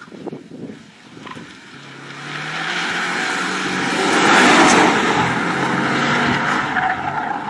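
Subaru WRX STI rally car with a turbocharged flat-four engine driving hard on a gravel stage, with tyre and gravel noise. It approaches, is loudest about halfway through as it passes close by, and stays loud as it goes away.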